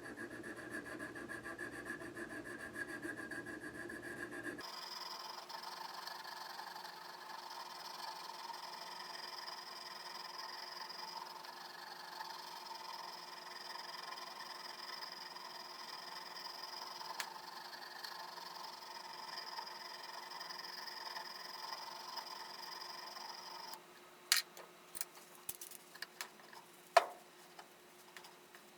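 A thin 600-grit polishing stone, wetted with oil soap, rubbed over the steel working surfaces of a wood auger bit: a steady, faint scraping rub that stops about 24 seconds in, followed by a few light clicks.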